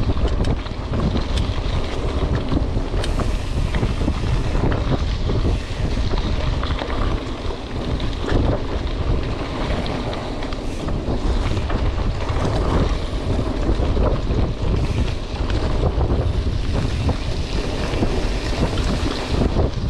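Wind buffeting the camera microphone over the rumble and crunch of a Trek Marlin 7 mountain bike's tyres rolling on a gravel track, with many small rattles and ticks from the stones.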